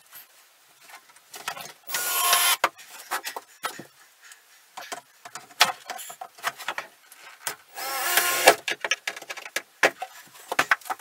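Cordless drill-driver driving screws to fasten a vinyl window into its framed opening: two short runs of the motor, about two seconds in and again near eight seconds, with clicks and knocks of handling between.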